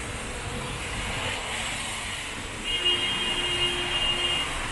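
Rainy city street ambience: a steady hiss of rain and traffic. A held electronic-sounding tone, like a beeper or horn, starts almost three seconds in and lasts about a second and a half.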